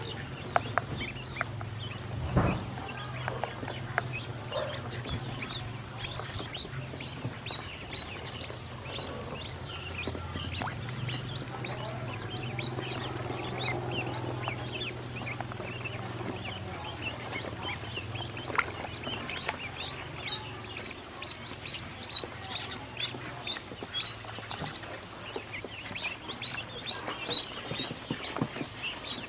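A group of ducklings peeping, high repeated peeps that come in quick runs near the end, with small splashes and dabbling in the water.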